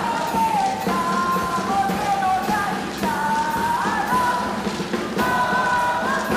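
Rock music with a steady beat and a melody of long held notes that slide between pitches.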